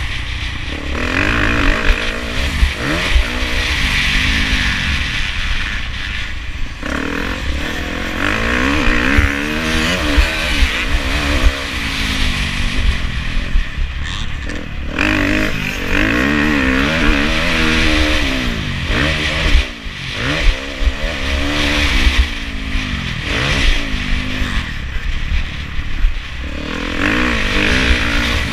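2017 KTM 350 SX-F's single-cylinder four-stroke engine revving hard up and down through the gears, its pitch rising and falling over and over, with a steady low wind rumble on the microphone.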